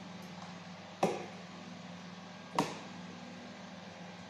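Metal spoon knocking twice against the rim of a stainless-steel cooking pot while serving, each knock ringing briefly, about a second and a half apart. A steady low hum runs underneath.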